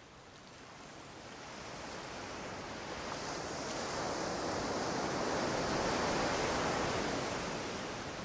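A rushing noise with no pitch, swelling slowly to its loudest a little past the middle and easing off near the end.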